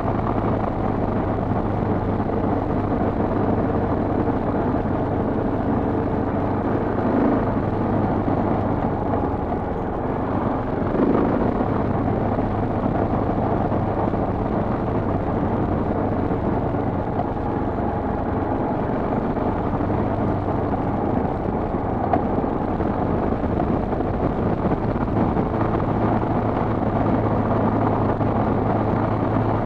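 Dual-sport motorcycle engine running steadily while the bike rides along a gravel dirt road.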